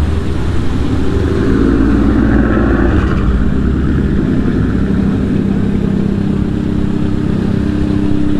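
A vehicle engine running, with steady low pitched lines, getting louder for a moment about two seconds in.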